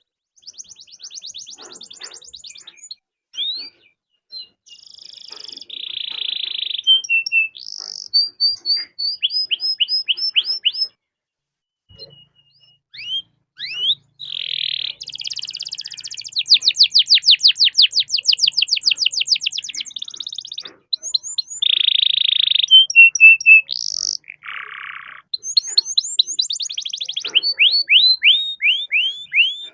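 Domestic canary singing a long, varied song: fast rolling trills of rapid repeated notes (about eight a second in the longest roll), broken up by buzzy rattling phrases and whistled note series, with a brief pause partway through.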